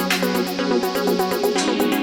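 Electronic background music with a steady bass note, layered melodic notes and a fast, even beat of high ticks.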